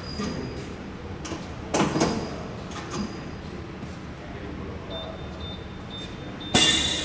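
Corghi Artiglio Master Code tyre changer starting its automatic procedure: a sudden clunk about two seconds in, then a run of short, high electronic beeps, about three a second, followed near the end by a sudden loud hiss as the machine begins to work.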